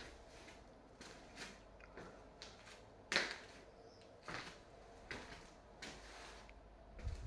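Faint scattered knocks and rustles in a small room, with a sharper knock about three seconds in.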